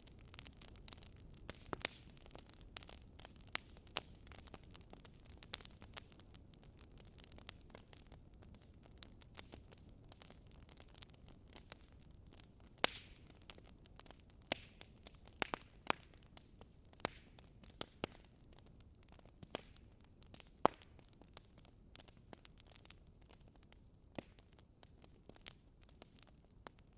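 Wood fire crackling, with irregular sharp pops and snaps of varying loudness over a soft low rumble of burning.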